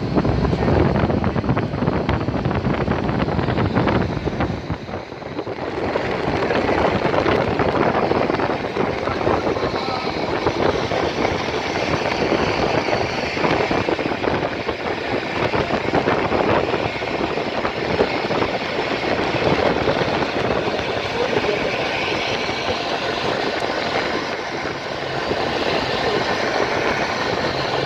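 Steady rushing and rumbling noise of a local cable-car lift running along its cable high over a river, deeper at first and then an even hiss.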